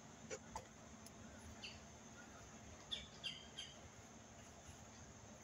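Faint, short bird chirps scattered over a quiet outdoor background, a few in the first second or so and a small cluster about three seconds in, with a faint steady low hum underneath.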